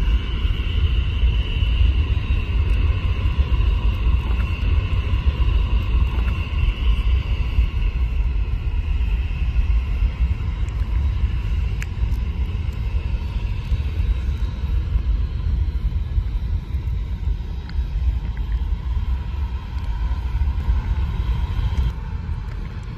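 Boeing 737 jet engines running at taxi power: a steady whine of a couple of slowly drifting tones over a heavy low rumble, easing slightly near the end.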